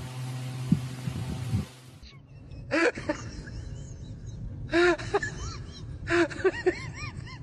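A steady hum with a few soft thumps that cuts off about two seconds in. Then come four short clusters of high-pitched vocal sounds, each a few quick notes that rise and fall, starting with a breathy onset.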